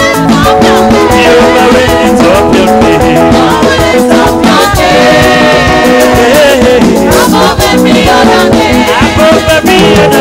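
Church praise music: voices singing a worship song over instrumental accompaniment, continuous and loud.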